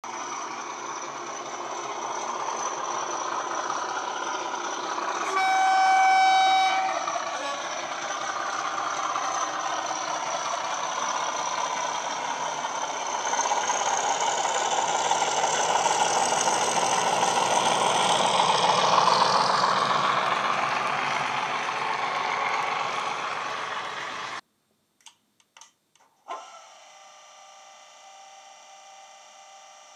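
Class 37 diesel sound from an ESU LokSound HiFi DCC sound decoder in a model locomotive: the English Electric V12 engine sound running, with one horn blast about five seconds in and the engine note rising and falling as the loco moves. The sound cuts off abruptly about 24 seconds in, followed by a few clicks and a faint steady hum.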